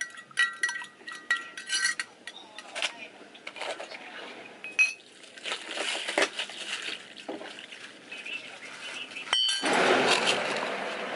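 A metal spoon stirring espresso in a glass measuring jug, clinking quickly against the glass. Then coffee is poured over crushed ice in a plastic cup. Near the end comes a sharp click, then a louder rush of noise as the lidded cup of ice is handled.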